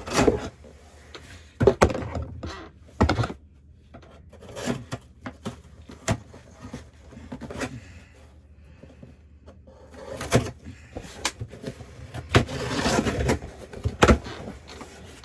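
Handling and unpacking of packaged items: scattered knocks, taps and clicks of bottles and boxes being set down and moved, with a stretch of rustling packaging near the end.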